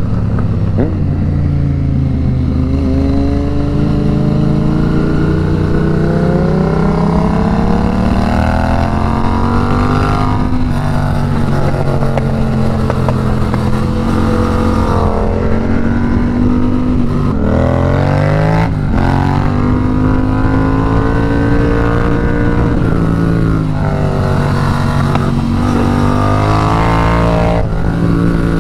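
Yamaha FZ-07's parallel-twin engine under hard riding, its revs climbing for several seconds at a time and dropping back sharply several times as the bike runs through the bends.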